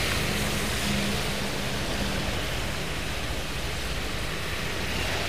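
Steady hiss of traffic on a rain-soaked road: tyres swishing on wet asphalt as a light truck and motorbikes pass, with a low engine hum in the first couple of seconds.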